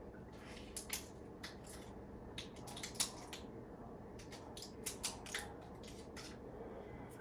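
Faint scattered clicks and rustles of small objects being handled, over a low steady hum.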